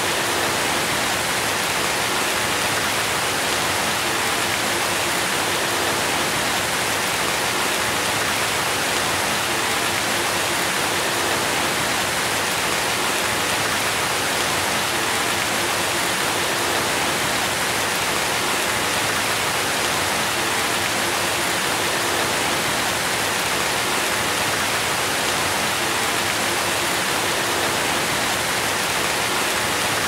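Steady rain, an even hiss with no single drops standing out.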